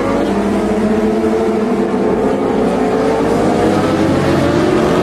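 Racing engines running hard and steadily, several pitches drifting slowly down and back up.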